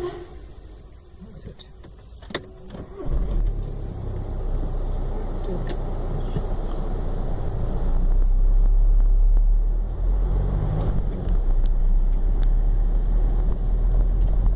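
A car heard from inside its cabin: quiet for the first few seconds with a sharp click about two seconds in, then a steady low engine rumble from about three seconds that grows louder as the car pulls away across the level crossing.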